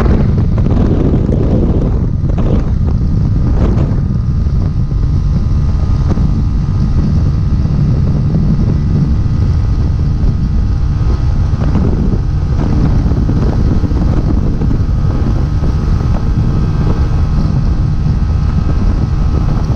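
Heavy wind buffeting the microphone at highway speed on a Honda CB 250 Twister, with the single-cylinder engine's steady drone under it as the loaded bike is held wide open near its top speed.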